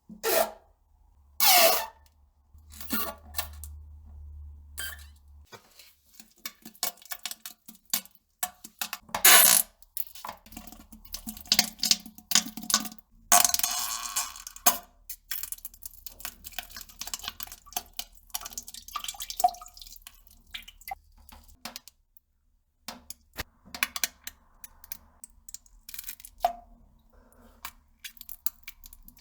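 A person farting and defecating on a toilet: a run of short, irregular bursts and plops, some with a wavering pitch, the loudest about 1.5 and 9.5 seconds in, and a longer spluttering stretch around 13 seconds in.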